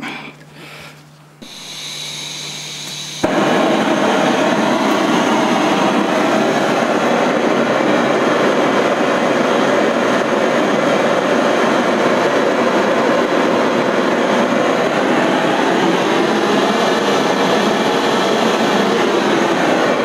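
Gas blowtorch burning with a steady loud rush, cutting in suddenly about three seconds in. Its flame is heating the aluminium casting around a bolt seized by salt water, to free the bolt.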